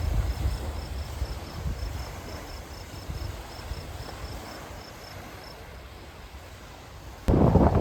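Insects chirping steadily in a fast even rhythm over a low, uneven rumble. About seven seconds in, a sudden loud gusting rumble of wind buffets the microphone.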